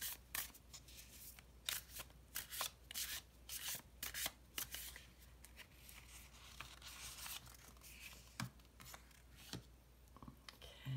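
Wild Unknown Tarot cards being shuffled hand over hand: a quick run of soft card snaps and the rub of card edges sliding past each other, thickest in the first half and thinning out as the cards are drawn and laid down.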